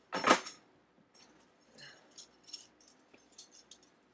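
Balisong (butterfly knife) being flipped and twirled by hand, its metal handles and loose parts jingling and clinking in quick, irregular strokes. A louder clatter sounds just after the start.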